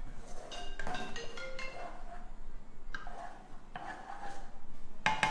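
Background music: a melody of short struck mallet notes, marimba-like, each ringing briefly and fading, with a louder note about five seconds in.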